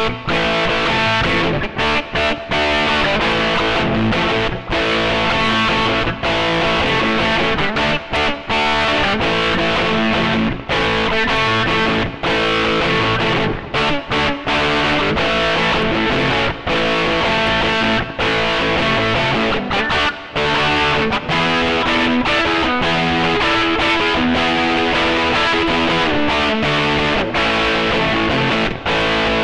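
Japanese-made Hohner Stratocaster-copy electric guitar with Hot Rails pickups, played through distortion: continuous strummed chords and riffs, broken by short stops every few seconds.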